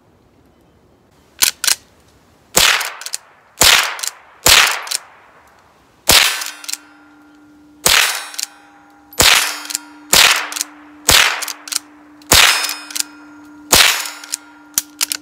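Rossi .22 LR lever-action rifle fired in a rapid string: about ten sharp cracks roughly a second apart, beginning about a second and a half in.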